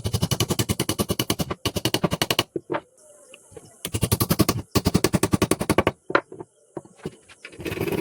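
A power tool hammering rapidly, about a dozen sharp blows a second, in four bursts of one to one and a half seconds with short pauses between them.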